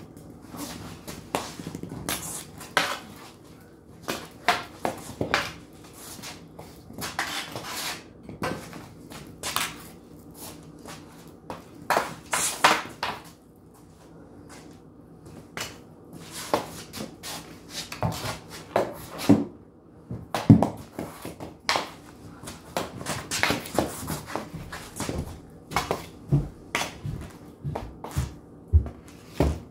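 Hockey stick blade repeatedly striking a ball and clacking on a concrete floor while stickhandling: a quick, irregular string of sharp clicks and knocks, with a few heavier thuds near the end.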